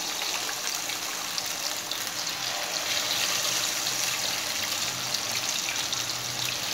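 Green-masala-marinated fish pieces frying in hot oil in a wok, a steady crackling sizzle as more pieces go into the oil.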